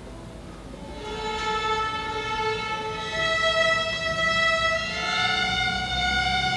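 A string orchestra led by violins playing slow, held notes, coming in about a second in and moving to new notes every couple of seconds.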